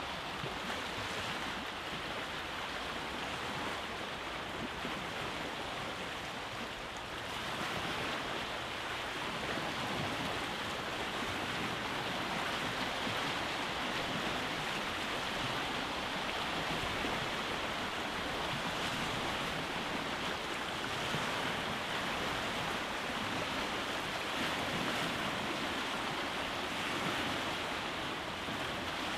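Sea waves washing onto a rocky beach, a continuous surf noise that swells slightly about seven seconds in.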